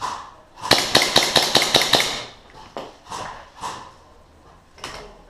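Airsoft gun firing a rapid string of about eight sharp shots, roughly six a second, lasting about a second and a half.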